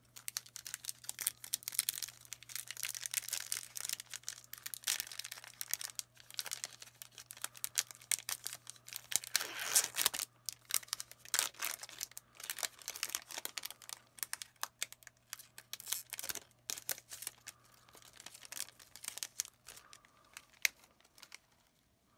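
Foil Pokémon booster pack wrapper being torn open and crinkled: a dense, irregular crackle of tearing and rustling that thins out near the end.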